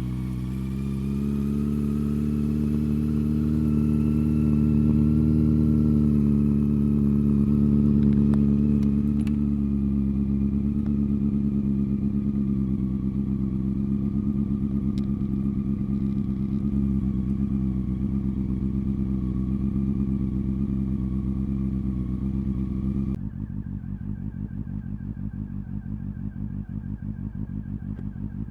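Honda CB400 Super Four's inline-four engine idling steadily through a BEAMS CORSA-EVOII aftermarket silencer, its pitch drifting up a little early on and settling. About 23 seconds in, the sound changes abruptly to a quieter, duller idle with a fine pulsing beat.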